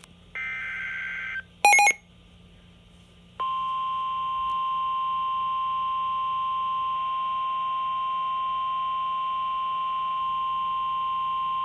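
Emergency Alert System broadcast on NOAA Weather Radio. The last of the SAME header data bursts is a harsh two-tone digital buzz about a second long, followed by a brief, very loud blip. About three and a half seconds in, the steady 1050 Hz weather-radio warning alarm tone starts and holds, signalling that a warning is about to be read.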